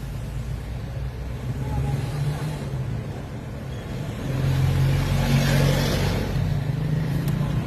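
A motor vehicle's engine and road noise, a steady low hum that grows louder about halfway through, with a swell of rushing noise soon after.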